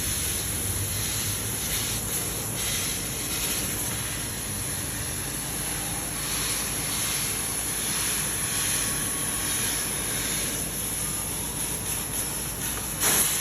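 CNC cutting machine running through a decorative pattern cut: a steady, even hiss, with a brief louder surge near the end.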